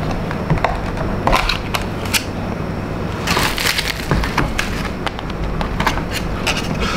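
Thin plastic takeaway food trays being handled and set down on a wooden table: plastic crinkling and rustling, with scattered clicks and light knocks.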